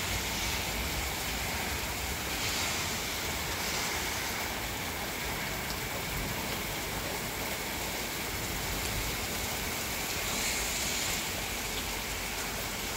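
Steady heavy rain pouring down, an even hiss of rain on the ground.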